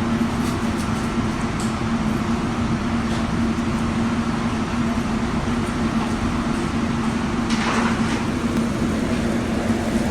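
Steady running noise of a vehicle: a constant low hum over a rumble, with a brief hiss about three-quarters of the way through.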